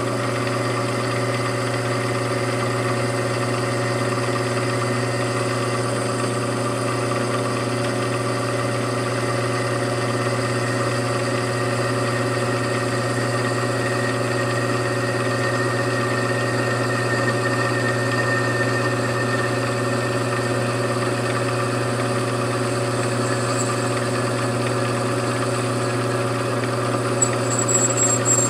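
Machine tool running steadily with a constant motor hum. A thin high-pitched tone sets in with a click near the end.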